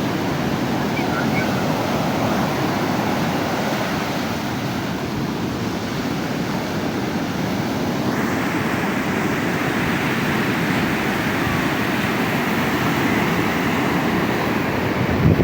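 Ocean surf washing continuously onto a beach. About halfway through, the rush grows hissier and brighter.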